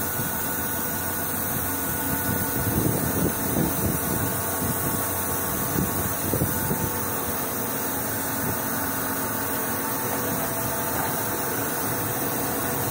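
Steady hum of running industrial machinery, with a few faint steady tones and an uneven low rumble for a few seconds near the start.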